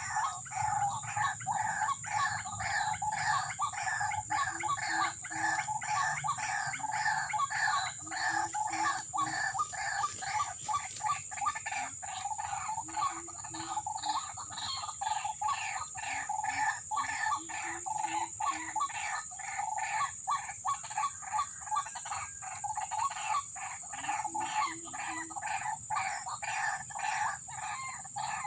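Recorded white-breasted waterhen (ruak-ruak) calls played through a portable speaker as a lure: a fast, unbroken run of harsh repeated notes, about three to four a second, with a short lower phrase every few seconds.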